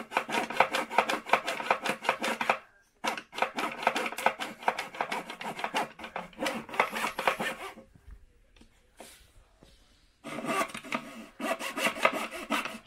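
Small hand saw cutting a thin wooden stick with quick back-and-forth strokes, in three bouts: a brief stop about two and a half seconds in, then a longer pause of about two seconds before the sawing resumes near the end.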